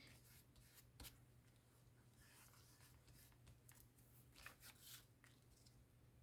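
Faint rustling of paper being handled and pressed down, with a few light clicks, one sharper about a second in, over a low steady hum.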